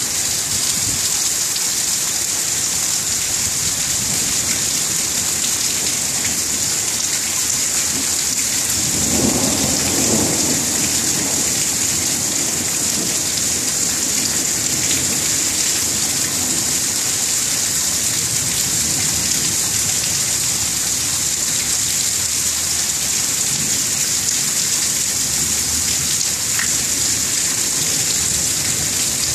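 Steady heavy rain hissing throughout, with a low roll of thunder swelling up about nine seconds in and dying away over a couple of seconds.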